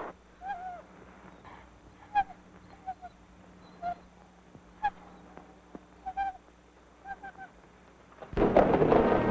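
A dog whimpering and whining in short, bending cries, one every second or so, some in quick pairs or threes. Near the end, orchestral music with brass comes in loudly.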